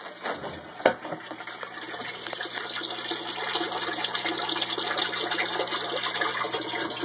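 Water splashing and trickling steadily into a hydroponic system's reservoir tub, growing gradually louder, over a low steady hum. A sharp knock sounds about a second in.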